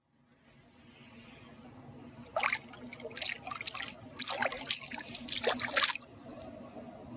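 Water dripping and trickling in quick, irregular drops over a low steady hum. The sound fades in from silence, the drops thicken from about two seconds in, and they stop abruptly about a second before the end.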